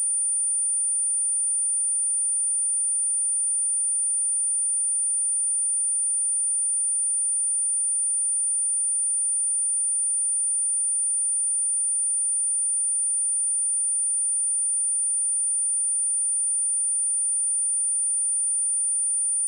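A steady high-pitched 9273 Hz sine-wave test tone, one pure unchanging pitch at constant level.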